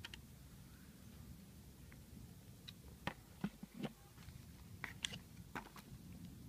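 Light clicks and taps of a long screwdriver and alternator parts being handled and set down on cardboard: a quick cluster of sharp taps midway and a couple more shortly after.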